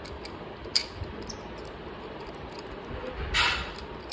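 Handling noise from a plastic phone tripod mount adapter: one sharp click a little under a second in, then a short rustling scrape near the end, over a steady low room hum.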